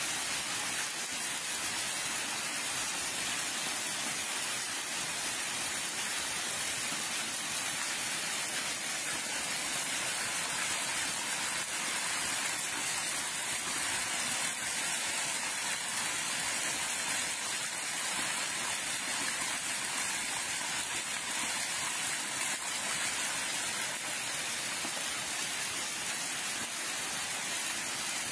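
Heavy rain falling steadily, a dense even hiss with no let-up.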